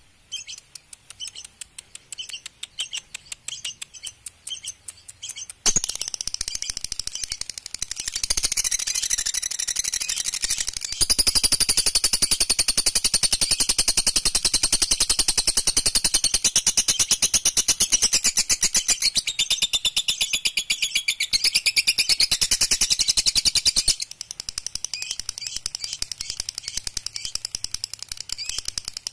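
Lovebird giving its long 'ngekek' song: a fast, high-pitched, continuous chattering trill that comes in loud about six seconds in and runs unbroken until about 24 seconds, with softer chirping before and after.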